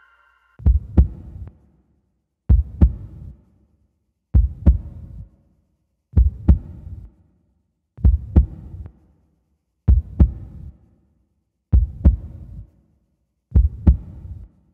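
Heartbeat effect in a show soundtrack: eight slow, deep double thumps (lub-dub), about one every two seconds, with silence between them.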